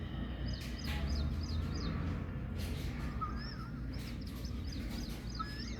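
Birds calling: quick runs of short, high chirps, and a few lower, curving whistled calls from about three seconds in, over a steady low rumble.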